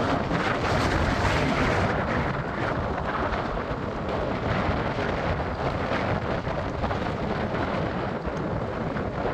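Wind buffeting the microphone: a loud, steady rush of noise, heaviest in the low end.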